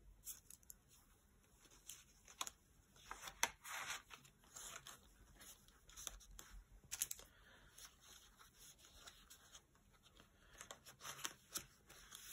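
Faint rustling of notebook pages and soft clicks as large metal paper-clip page markers are slid onto the pages, in scattered short bursts.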